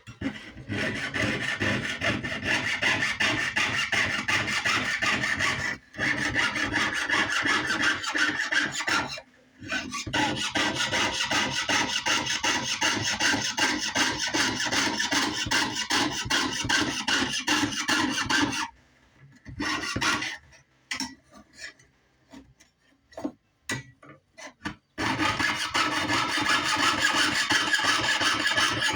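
Jeweler's saw cutting metal sheet in quick, even strokes, breaking off briefly twice, then only a few scattered strokes for several seconds before steady sawing resumes near the end.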